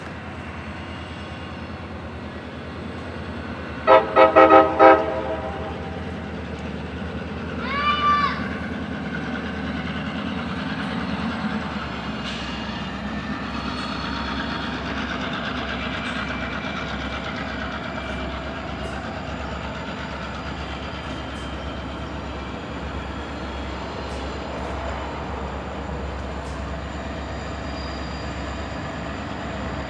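Diesel locomotive horn sounding four quick short blasts, followed by the steady low rumble of the diesel locomotive's engine as the train approaches. About eight seconds in there is a brief rising-and-falling high tone.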